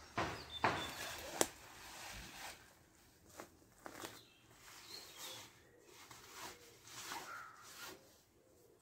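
Nylon fabric of a Hennessy hammock and its snakeskin sleeves rustling and swishing as they are handled and slid along the hung hammock. A run of short rustles, loudest in the first second and a half, with a sharp click about a second and a half in.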